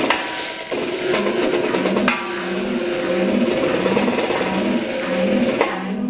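Snare drum played with sticks, a dense rattling texture with several sharp hits, over live electronic music that has a held note and a low pulse repeating about twice a second.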